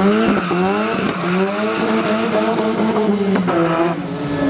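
Ford Sierra Cosworth rally car's turbocharged 2.0-litre four-cylinder engine revving hard through a tight corner. The pitch climbs again and again as it is driven up through the revs, then drops a little before the end.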